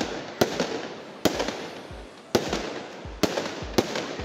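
Aerial fireworks bursting: five or six sharp bangs about a second apart, each fading away before the next.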